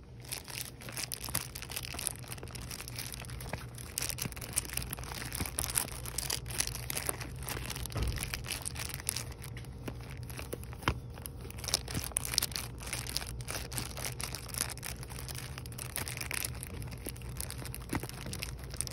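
Plastic-wrapped cardboard soap pack (Irish Spring two-bar pack) crinkled and tapped in the fingers: a continuous run of quick crackles and taps. A steady low hum sits underneath.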